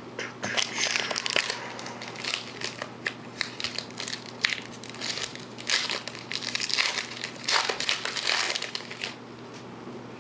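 Foil wrapper of a 2010 Panini Epix football card pack crinkling and tearing as it is pulled open by hand, a run of crackly bursts that stops about a second before the end.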